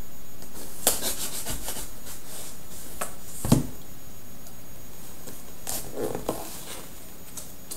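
Fingers scratching and picking at the packing tape on a cardboard box, with a run of quick scratchy rips about a second in and more rustling later. Near the middle there is a single thump of the box against a wooden desk.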